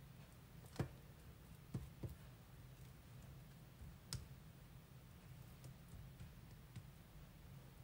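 Metal spoon spreading crème fraîche on bread, clicking a few times against the stainless steel platter beneath, the loudest click about a second in. Otherwise near silence with a faint low hum.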